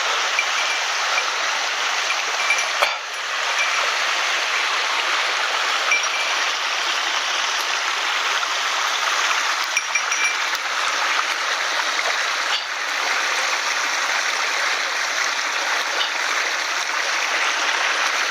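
Small mountain headwater stream flowing: a steady, even wash of water close by, with a couple of faint brief knocks.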